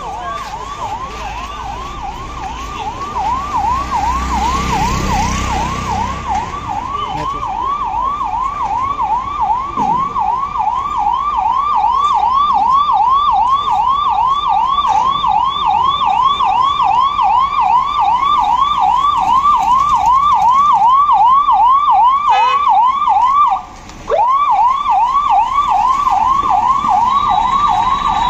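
Ambulance's electronic siren wailing in a fast repeating sweep, about three rises a second, growing louder as the ambulance approaches. Near the end it cuts out for a moment and starts again with a rising glide.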